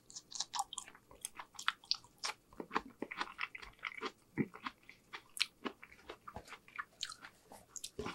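A mouthful of asparagus spear being bitten and chewed: an irregular run of short crunches and mouth clicks, several a second.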